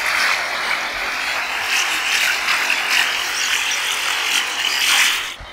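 Computer-generated sound of the installation's creature, built by an algorithm from recorded sea-wave samples: a dense, grainy, buzzing hiss whose pitch band slowly wavers up and down. It drops away sharply near the end.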